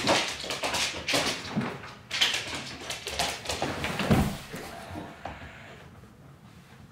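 Samoyed puppy scrabbling and pawing at a blanket on a wooden floor: a busy run of claw scrapes, fabric rustling and soft knocks that thins out over the last couple of seconds.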